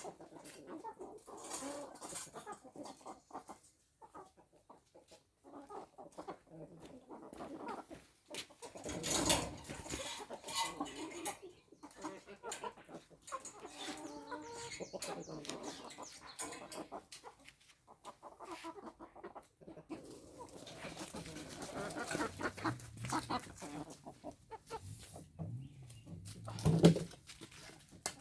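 Free-range chickens clucking on and off, with a louder burst about nine seconds in and a short loud peak near the end.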